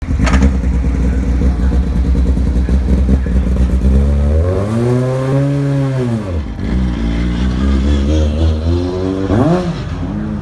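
Formula 3 car's engine idling, with a throttle blip that rises slowly to a peak about five seconds in and drops back to idle, then a second short, sharp blip near the end.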